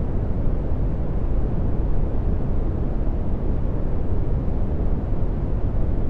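Dark brown noise: a steady, deep rumbling hiss with most of its energy in the low bass and very little treble, unchanging throughout.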